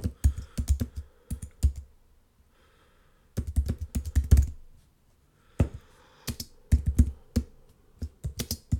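Computer keyboard typing: three quick runs of keystrokes separated by short pauses.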